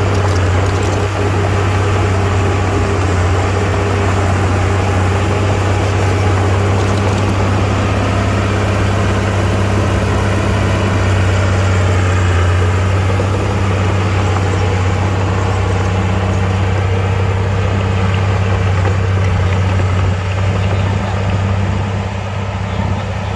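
Komatsu mini bulldozer's diesel engine running steadily at a constant low drone while the dozer works soil; it eases off slightly near the end.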